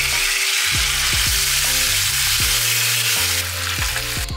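Marinated chicken pieces sizzling loudly as they fry in hot oil in a pan, a dense steady hiss. Background music with a bass line and a beat plays underneath.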